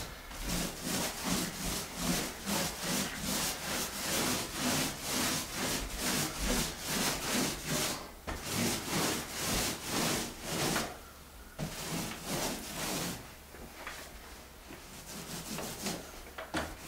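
Paint roller on an extension pole, loaded with flat ceiling paint used as primer, rolled back and forth over drywall repair patches, a rhythmic rubbing stroke about two or three times a second. It pauses briefly about eleven seconds in and the strokes grow fainter near the end.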